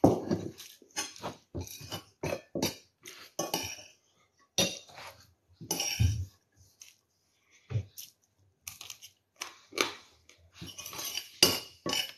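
Eating at the table: a metal spoon clinking and scraping in a bowl, with irregular small knocks and chewing.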